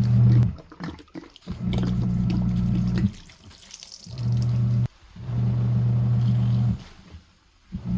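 Washing machine agitating a heavy load of dish-soap suds: the motor hums in stop-start stretches of about one to one and a half seconds, cutting off abruptly between strokes. Water and suds slosh and splash in the pauses.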